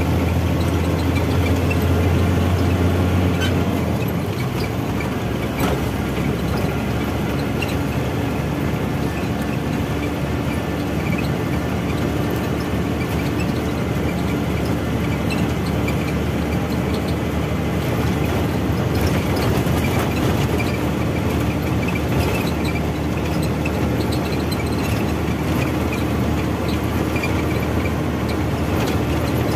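Truck engine running and road noise heard from inside the cab while driving. A deep hum is strong for the first few seconds and drops away about four seconds in, leaving a steady engine drone.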